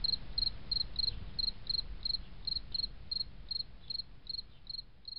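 A cricket chirping steadily, about three short chirps a second, over a low rumbling background hiss.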